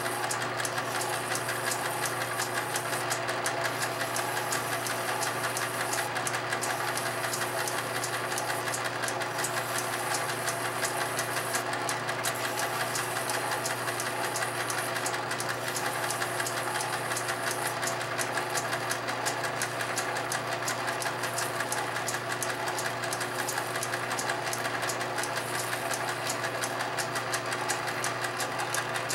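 Small metal lathe running steadily, its motor and drive humming, with a sandpaper block held against a wooden dowel spinning in the chuck to taper it.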